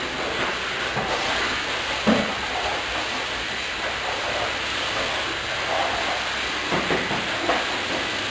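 Corded stick vacuum cleaner running steadily as it is pushed over a tiled floor, with a few knocks from the vacuum head, the loudest about two seconds in.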